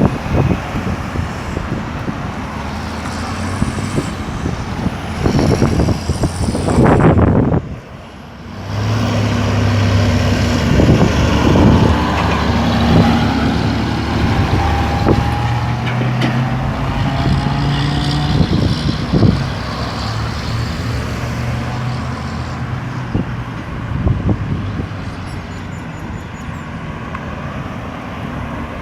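Busy road traffic: cars and trucks passing, with a heavy vehicle's engine pulling away and rising in pitch as it accelerates after a brief lull about eight seconds in.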